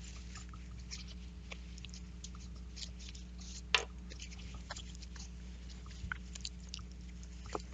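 Faint light clicks and ticks of small shifter mechanism parts being handled during a Shimano 105 R7000 shifter teardown, with one sharper tick a little under four seconds in, over a low steady hum.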